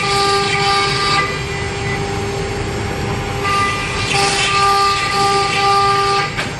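CNC router spindle whining while cutting plastic sheet, a steady pitched whine with a hiss of cutting. The hiss and whine swell through about the first second, then again from about three and a half seconds until shortly before the end.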